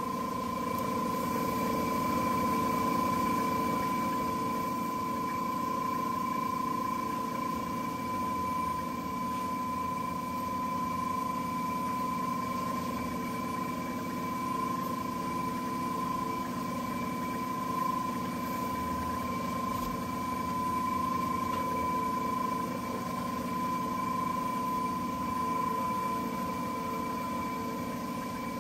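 Wood lathe motor running at a steady speed with an even high whine, while a cloth polishes the solid brass workpiece spinning on it.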